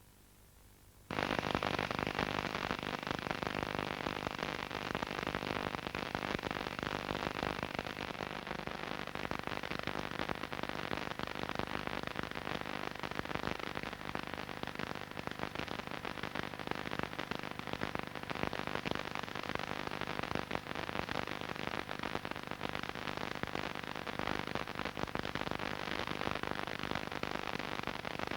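A dense, steady hiss with fine crackle and a low hum underneath, starting abruptly about a second in.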